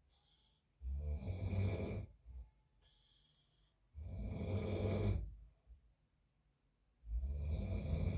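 A man snoring in his sleep: three long, low snores about three seconds apart, with quieter breaths between them.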